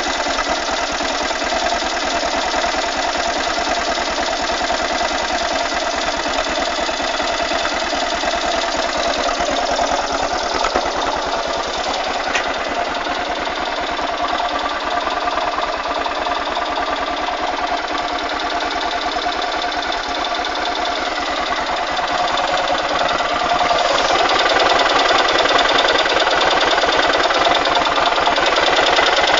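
Yamaha SZR 660's single-cylinder four-stroke engine idling steadily, with an even run of firing pulses, after being started without choke. It gets a little louder over the last few seconds.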